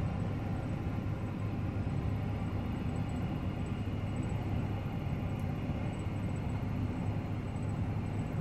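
Steady low engine rumble that holds the same level throughout, with no swell or fade.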